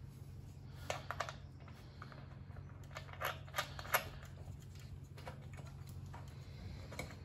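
Faint scattered metal clicks and taps as a washer and nut are fitted onto the wheel bolt of a push reel mower. There are three quick clicks about a second in, a few more around three to four seconds, and one near the end.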